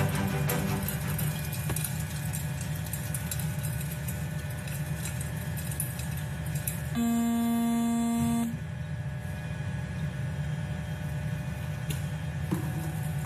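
Music fades out at the start, leaving a steady low hum. About halfway through, a single buzzing beep sounds for about a second and a half.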